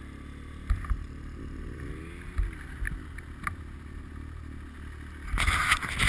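Snowmobile engine running at low speed in deep powder, its pitch rising and falling once about two seconds in, with occasional knocks. Near the end, a louder rush of noise with more knocks.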